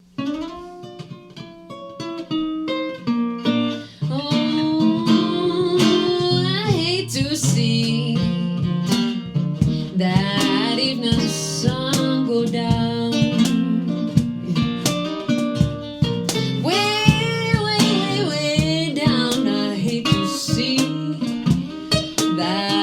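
Music: a song with plucked acoustic guitar and a singing voice. The guitar plays alone and quieter at first, and the song fills out and gets louder about four seconds in.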